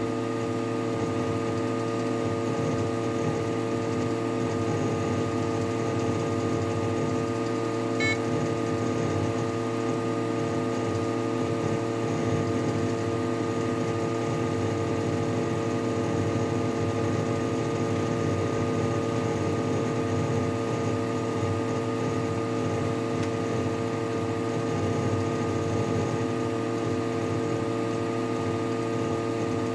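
Desktop computer system unit humming steadily with several fixed tones, picked up through its case, with one faint click about eight seconds in. The hum comes while the computer is frozen under browser load, a fault the owner cannot explain.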